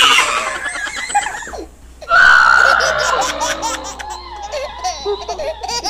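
A young boy laughing excitedly in loud bursts, with a short pause about two seconds in.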